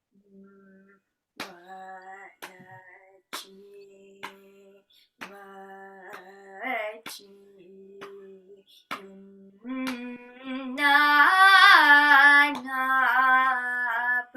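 A female voice singing a Carnatic vocal passage heard over a video call, in short gliding phrases that grow much louder for the last few seconds. Several sharp clicks or taps fall between the phrases, and a faint steady low tone sits underneath in the quieter first part.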